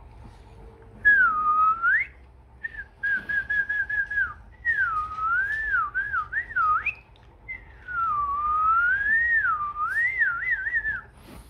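A person whistling in four wavering phrases of clear high notes that slide up and down, with a fluttering held note in the second phrase and quick trills near the end.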